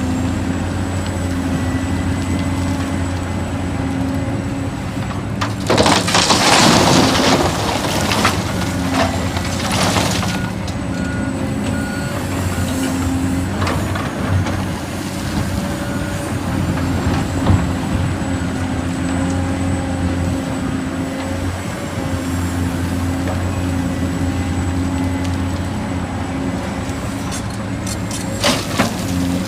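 Heavy diesel truck engine running steadily, with a loud hiss of released air about six seconds in and a few short, faint beeps a little later.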